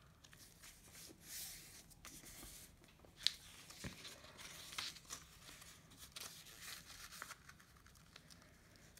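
Faint rustling and creasing of a sheet of A4 paper as its corners are folded down, with a couple of soft sharper clicks a little after three seconds in.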